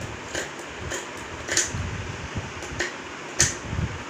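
Scissors snipping through a paper pattern pinned onto layered cloth, about five crisp cuts with a pause in the middle, the last near the end the sharpest.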